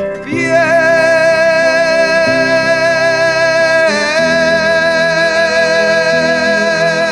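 Devotional song: a singer holds two long notes with vibrato, changing note about four seconds in, over acoustic guitar accompaniment.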